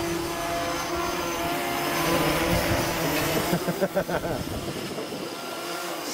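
Electric RC model aircraft motor and propeller whining in flight, the pitch shifting up and down with throttle, with a brief fluttering wobble about four seconds in.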